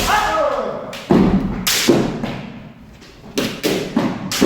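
Kendo sparring: a string of sharp knocks and thuds from bamboo shinai strikes and stamping footwork, about seven in all, with a shout (kiai) falling in pitch at the start.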